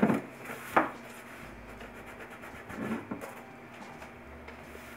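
A cloth rubbed and wiped over a kitchen countertop by a rubber-gloved hand. Two sharp knocks in the first second, as of objects set down or moved on the counter, and a little soft handling noise about three seconds in.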